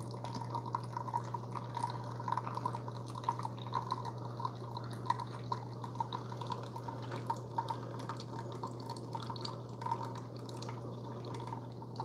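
Keurig K-Supreme Plus SMART pod coffee maker mid-brew: coffee trickles and drips into a glass mug over a low steady hum. It is quiet, with no splashing.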